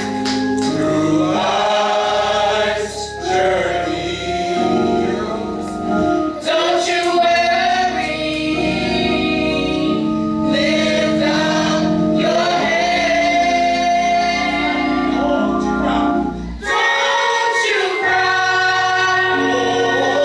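Church gospel choir of mixed male and female voices singing a song together.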